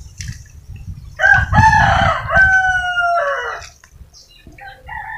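A rooster crowing: one long crow of about two and a half seconds, with another call starting near the end. Low thuds and sloshing from someone working in wet mud run underneath.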